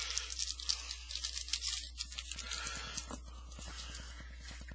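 Trading cards and a crinkly pack wrapper being handled: dense crackly rustling for about two seconds, then sparser handling with a single click.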